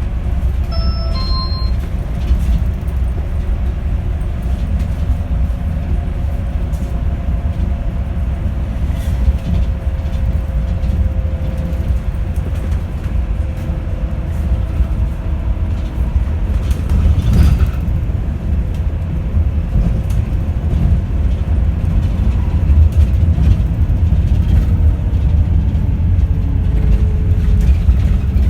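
Yutong E12 battery-electric bus on the move, with a steady heavy rumble of road and body noise and a faint whine from its permanent-magnet synchronous drive motor that drifts slowly in pitch. A short two-tone electronic beep sounds about a second in.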